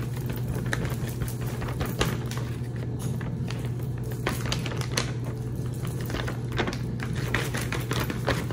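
Light, irregular taps and clicks of a spice shaker as cayenne pepper is shaken over raw chicken, over a steady low hum.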